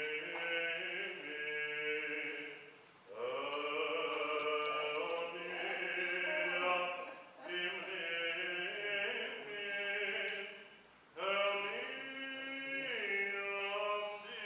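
Unaccompanied Greek Orthodox (Byzantine) chant sung by voices in long held phrases, with short breaths between phrases about three, seven and eleven seconds in.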